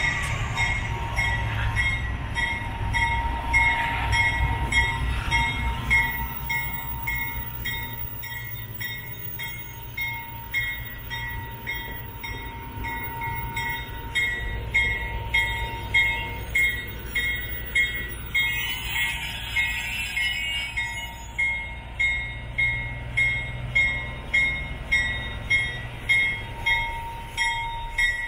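GE 44-ton center-cab diesel locomotive running slowly close by, its engines a steady low rumble, with a regular beat about one and a half times a second that grows stronger in the second half.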